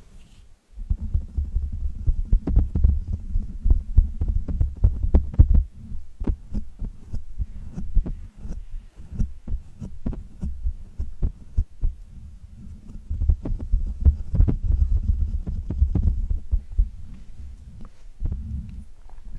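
Close-microphone ASMR trigger sounds: two long stretches of heavy low rumbling, one near the start and one past the middle, with many small clicks throughout.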